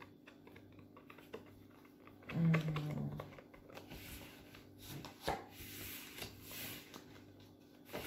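Faint handling of playing cards on a table: soft clicks and rustles as Uno cards are laid down and picked up. About two and a half seconds in, a person gives a short, low "mm" hum, and a sharper click follows a little past five seconds.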